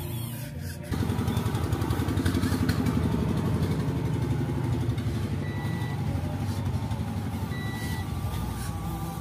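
Simulated truck engine sound, a low rapid throb that starts about a second in and runs on steadily. A short high beep sounds twice over it. The trucks are small electric RC models, so the engine note is added sound rather than a real engine.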